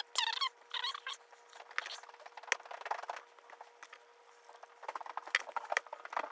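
Sped-up sound of scissors cutting paper: a run of quick, sharp snips and clicks with short paper rasps, and a brief high chirping near the start.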